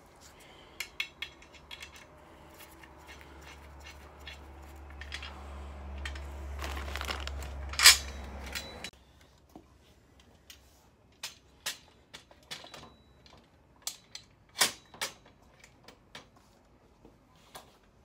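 Scattered sharp clicks and knocks of a metal filing-cabinet lock bar being handled and set against a steel filing cabinet, with a loud knock about eight seconds in. Plastic wrapping rustles in the first half, until a sudden stop near the middle.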